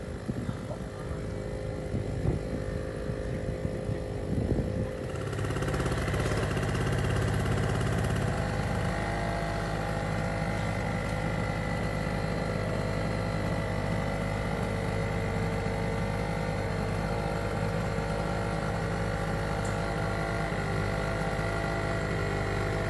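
A steady mechanical hum, like a motor running evenly, sets in about five seconds in and holds unchanged. Before it come scattered knocks and rustles.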